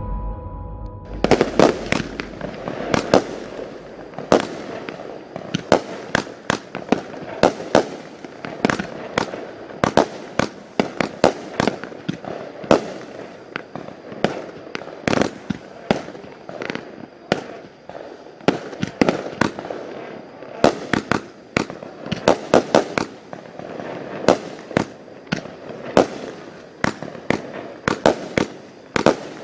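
Consumer fireworks cake, the Flyboys multi-shot repeater, firing shot after shot: a long series of sharp bangs, about one to two a second, as its shells launch and burst. A short musical jingle fades out in the first second.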